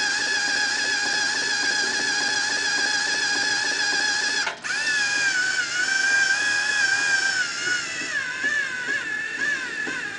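Motor of a robotic chess board's under-board mechanism whining steadily at a high pitch as it moves a pawn. It cuts out for an instant about halfway through, then carries on, its pitch wavering up and down toward the end.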